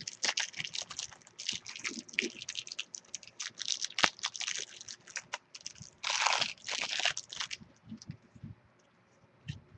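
A Timeless Treasures trading card pack's wrapper being torn open and crinkled: a dense, crackling run that stops about seven and a half seconds in. A few soft clicks follow near the end.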